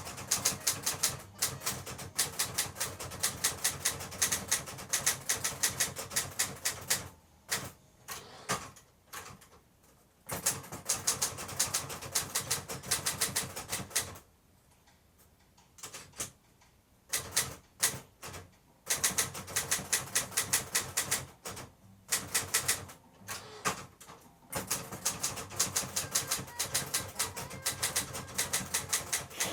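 Olivetti Linea 88 manual typewriter being typed on: quick runs of key strikes, several a second, broken by short pauses, the longest about two seconds around the middle.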